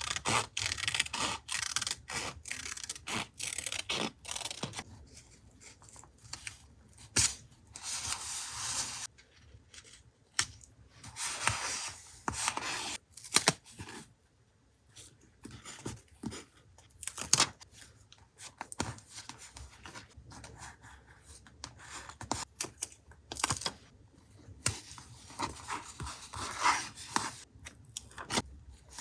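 Paper being handled for collage journaling: irregular rustling, tearing and rubbing of paper, with many small clicks and taps.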